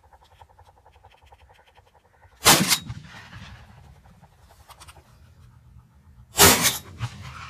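Two gunshots about four seconds apart, each a sharp blast with a short echoing tail, fired while hunting wild pigeons.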